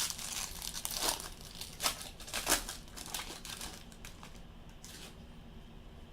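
Gloved hands handling and flipping through 2016 Bowman Draft trading cards, a run of short sliding swipes and crinkles over the first three seconds that dies away to quiet handling after about four seconds.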